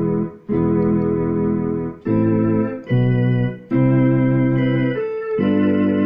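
Electronic keyboard played with a sustained, organ-like voice: held chords that change about once a second, with short breaks between some of them.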